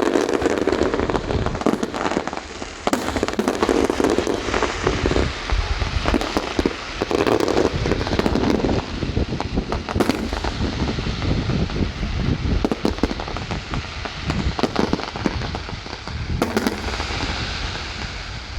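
Fireworks display going off: a dense, continuous run of bangs and crackling, one burst after another.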